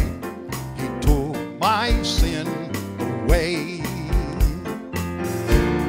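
A man singing a gospel song with vibrato, accompanying himself on a Yamaha digital keyboard, over a steady beat.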